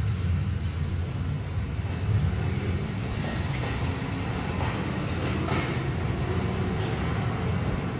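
Steady low rumble of room noise in a darkened theatre, with faint rustling in the middle.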